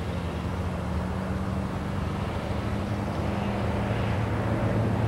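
Baldwin 2-8-2 steam locomotive moving slowly away, a steady low rumble and hum with no distinct exhaust beats.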